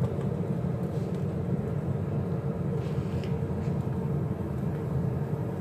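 Steady low rumbling hum, with a few faint light clicks about three seconds in.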